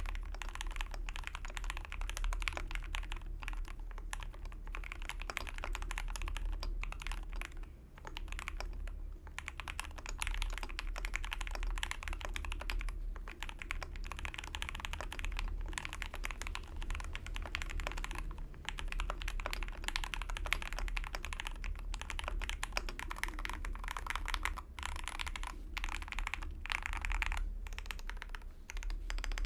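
Continuous fast typing on a custom 60% mechanical keyboard with lubed SP-Star Vanilla linear switches in a brass-plated aluminium case with PBT keycaps, with a few brief pauses. A steady low hum runs underneath.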